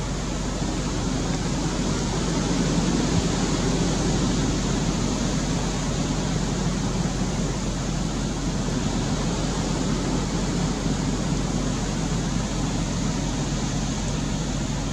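Wind blowing hard: a steady noisy rush that swells a little a few seconds in and then settles.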